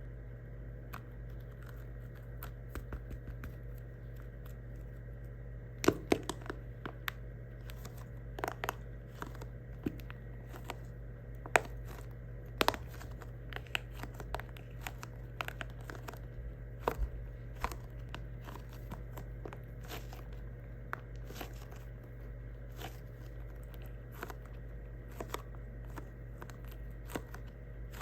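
Squishy toys and their thin plastic wrapping being handled: irregular sharp crinkles and crackles, thickest through the middle, over a steady low hum.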